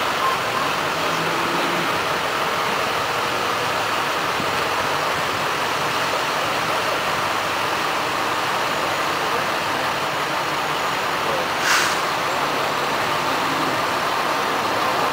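Fire trucks and a pickup rolling slowly past in a parade: engines running at low speed under a steady wash of street and crowd noise. There is one short, sharp sound about twelve seconds in.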